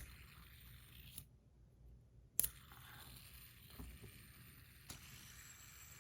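Faint handling of a metal bar fidget spinner: a sharp click a little before halfway, then a few light ticks over a soft hiss.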